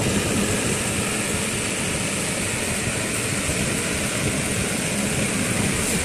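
Homemade brushless mini table fan running steadily at speed, its spinning blade giving an even whir of moving air with a high, constant whine over it.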